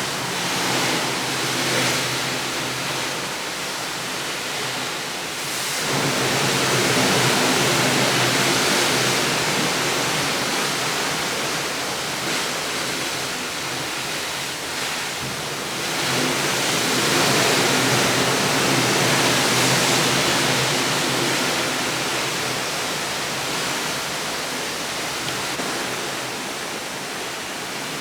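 Rushing water noise that swells twice and eases off, about six and sixteen seconds in.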